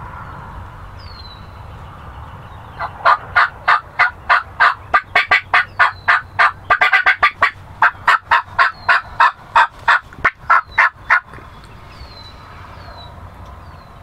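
A long run of loud, sharp turkey yelps, about three to four a second, quickening into a fast burst of clucking cutting in the middle, lasting about eight seconds.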